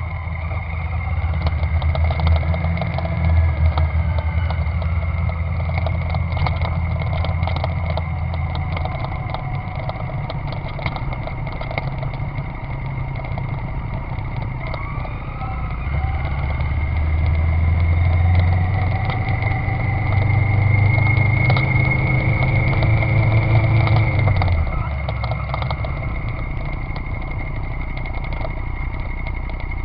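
650 cc motorcycle engine running, its revs raised twice and let fall back, with a steady high whine and fast ticking over it: the abnormal noise the owner is recording.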